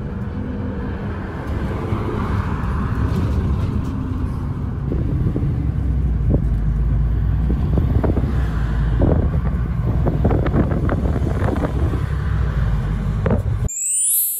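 Inside a moving bus: steady engine rumble and road noise, with frequent short rattles and knocks from the cabin in the second half. Near the end the rumble cuts off abruptly into a short, bright, high-pitched editing sound effect.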